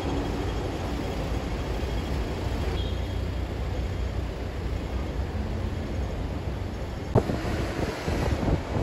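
City street ambience: a steady rumble of traffic with general street noise, and one sharp knock about seven seconds in.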